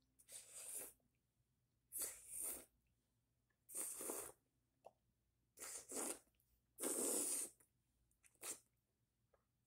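Close mouth sounds of eating soft, juicy dragon fruit flesh by hand: six short, noisy bursts of sucking and chewing, about a second or so apart.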